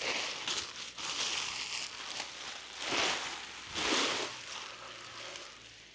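Durston X Mid Pro 2+ tent's stiff Dyneema (DCF) fabric crinkling and rustling as it is handled and unfolded. There are louder swells about a second in and again around three and four seconds, then it fades off toward the end.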